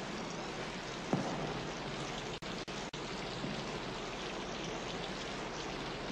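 Steady rain-like hiss that drops out for an instant three times around the middle, with a short low thud about a second in.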